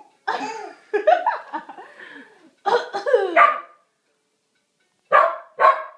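A young child making playful fake coughs and cough-like vocal noises, with two short sharp coughs about five seconds in.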